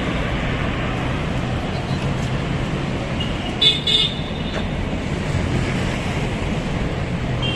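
Steady outdoor traffic noise, with two short high-pitched toots about three and a half seconds in.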